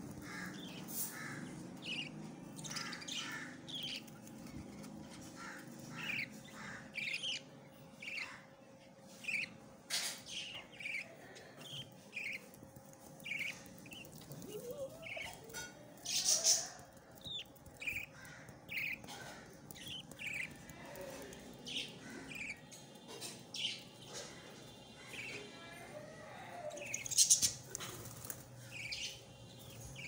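Budgerigar chicks cheeping: a run of short, high chirps, about one or two a second, with two louder, harsher calls, one around sixteen seconds in and one near the end.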